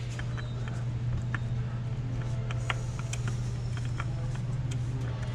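Scattered light clicks and ticks of a new spin-on oil filter being threaded onto its mount by hand, over a steady low hum.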